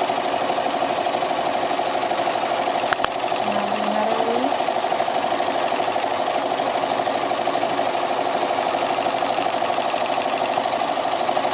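Domestic sewing machine running fast and steadily, the needle stitching continuously through a quilt in free-motion quilting. There is a single sharp click about three seconds in.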